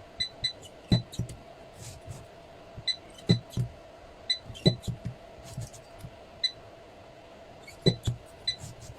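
Battery spot welder welding nickel strip onto the lithium cells of a power-tool battery pack. It fires again and again at an irregular pace, each weld a short sharp snap, many of them with a brief beep. A faint steady hum runs underneath.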